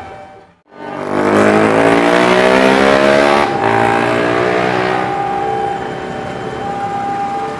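CC201 diesel-electric locomotive's engine running hard and revving up as it approaches, starting about a second in with a loud pitched drone that rises for a couple of seconds over heavy rumbling noise, then holds steady.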